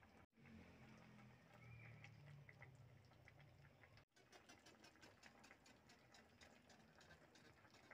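Faint ticking and popping of a pot of chicken noodle soup simmering, with a low hum during the first few seconds. The sound drops out completely twice for an instant.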